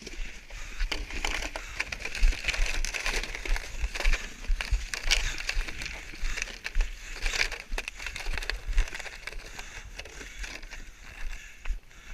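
Crunching, rustling footsteps of a runner moving over rough ground, full of irregular crackles, with low wind buffeting on the head-mounted camera's microphone.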